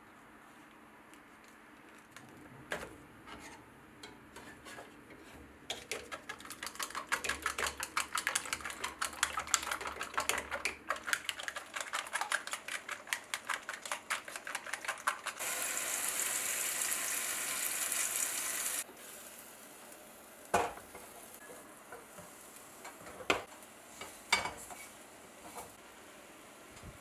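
Wooden chopsticks beating eggs in a stainless steel cup, a rapid clatter of many quick clicks against the metal. Then a few seconds of sizzling that start and stop abruptly, followed by a few sharp knocks of utensils on the cookware.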